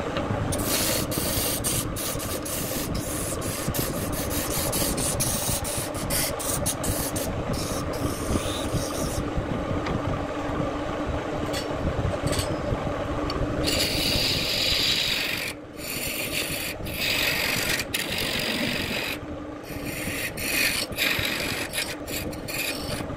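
Electric wood lathe running with a steady hum while the spinning wooden vase blank is worked by hand, giving a continuous rasping scrape with many sharp ticks. The scrape grows brighter and harsher for a moment around the middle.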